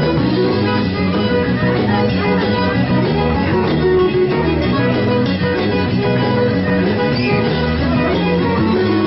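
Cajun band playing an instrumental passage: fiddle and guitar over a steady rhythm, without singing.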